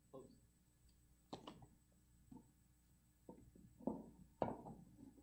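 Faint, irregular knocks and thuds on a wooden stage from a color guard posting the colors: footfalls and flagstaffs being set into their stands, in a hushed hall. The two loudest knocks come close together about four seconds in.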